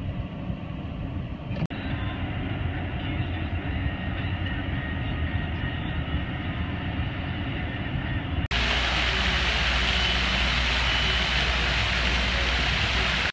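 Steady road and engine noise of a car driving, with a cut about two seconds in. About eight seconds in, it cuts to the even hiss of a fountain's water jets spraying and splashing.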